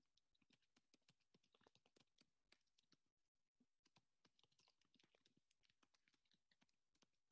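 Very faint typing on a computer keyboard: irregular key clicks, several a second.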